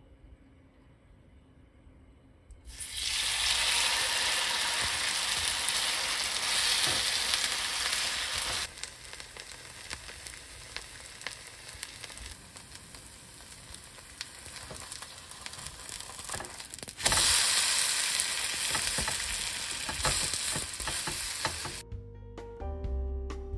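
Korean herb-and-chive pancake batter sizzling and frying in hot oil in a nonstick frying pan. The sizzle starts about three seconds in, drops to a softer frying crackle for several seconds, then comes back loud before music takes over near the end.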